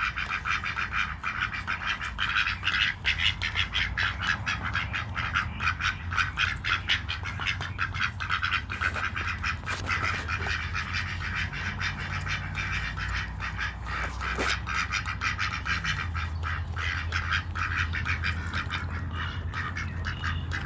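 Two ducks quacking in a rapid, continuous chatter, with a steady low hum underneath.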